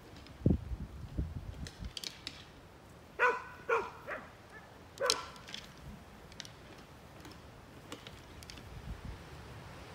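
Chihuahua barking, a few short high barks between about three and five seconds in. Low thumps come before them in the first two seconds.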